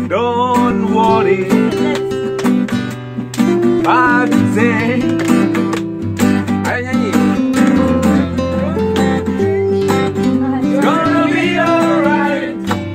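Acoustic guitar strummed in a steady rhythm of changing chords, with a voice singing along in short wavering phrases and hands clapping.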